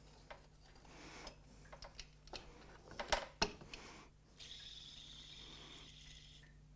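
Faint metallic clicks and clinks of hand tools on engine parts, with two sharper clinks about three seconds in.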